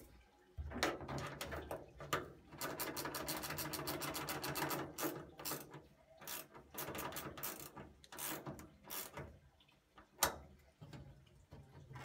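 Ratchet screwdriver clicking as the screws on a gas boiler's metal casing are done up, in runs of rapid clicks, the longest from about two to five seconds in, with one sharp click near ten seconds. A low hum runs underneath.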